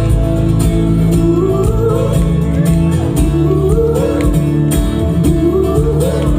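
Live band music with guitar, a sustained bass line and a steady drum beat, playing an instrumental passage with no words sung.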